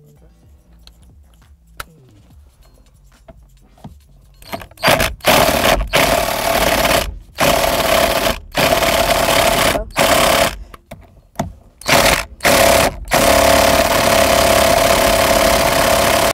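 Impact wrench hammering in a string of trigger bursts with short pauses between them, the last one held longest, starting about four and a half seconds in. It is breaking loose the steering wheel's center bolt, which is held with Loctite.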